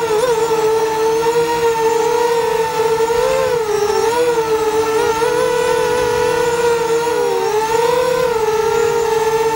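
Eachine Falcon 210 Pro quadcopter's motors and propellers whining steadily in a hover, the pitch wavering slightly up and down as the throttle makes small corrections.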